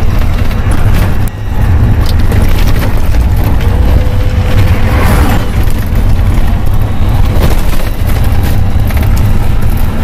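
A vehicle driving on a gravel dirt road, heard from inside the cabin: a loud, steady low rumble of engine and road noise.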